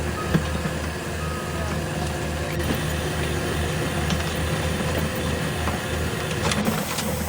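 A 3D printer running: its stepper motors hum steadily with a pulsing low drone, with brief high whines as the print head moves.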